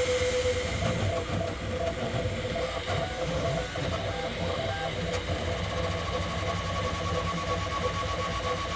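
Bambu Lab P1P 3D printer printing at its top 'ludicrous' speed of about 500 mm a second: a steady mechanical whirr with short shifting tones as the print head moves, and a thin steady whine setting in about halfway.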